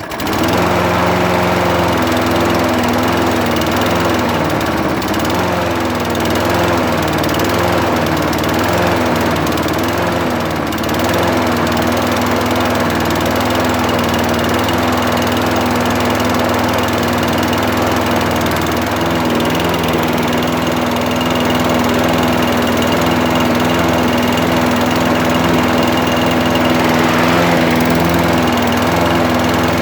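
Toro Recycler push mower's small four-stroke engine catching and running slowly. Its speed wavers up and down for the first ten seconds or so, then settles into a steady run. The owner puts the low speed down to a clogged carburetor and a slack governor spring.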